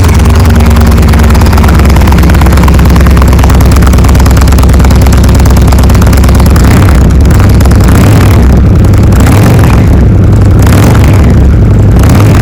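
2019 Indian Chieftain Limited's V-twin engine idling loudly and steadily through its stock factory mufflers, just after being started.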